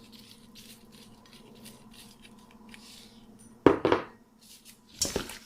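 Kitchen dishware being handled: faint light clinks, then a sudden loud knock of a dish about three and a half seconds in, and another clatter near the end.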